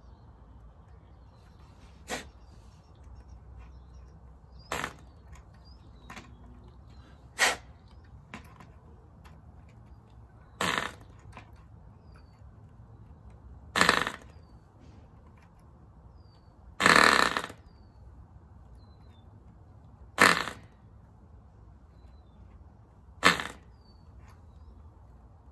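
Cox .049 glow engine being hand-started by flicking its propeller about every three seconds. Each flick brings a brief pop or sputter, and the longest, about two-thirds of the way through, lasts about half a second. The engine fires but does not keep running.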